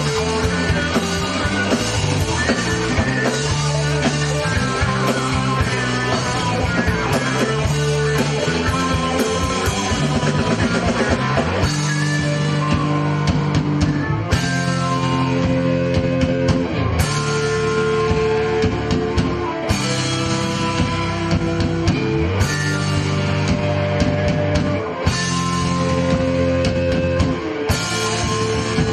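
Live rock band playing an instrumental passage on electric guitars and drum kit. In the second half, chords are held, with a cymbal crash about every three seconds.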